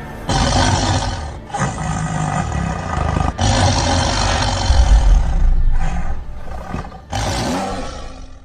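Tiger roars and growls, about four loud roars one after another, cutting off suddenly at the end.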